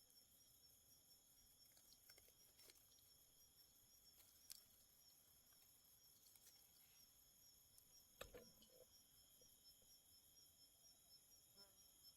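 Faint steady chorus of insects chirping, one of them in an even pulsing trill, with a few faint clicks or rustles, the clearest about eight seconds in.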